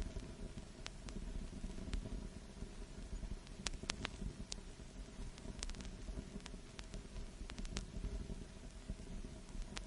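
Vinyl record surface noise: a steady low rumble and hiss with scattered, irregular crackles and pops.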